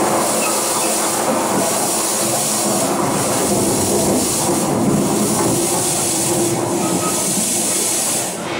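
Stage fog machine blasting with a loud, steady hiss that stops shortly before the end.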